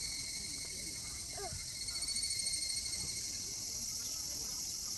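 Steady, high-pitched chorus of insects shrilling, with a brief faint voice about a second and a half in.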